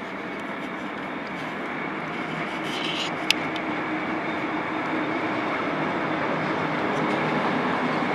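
A locomotive-hauled Intercity train running slowly over the station pointwork: a steady rumble of wheels on rails that slowly grows louder, with one sharp click about three seconds in.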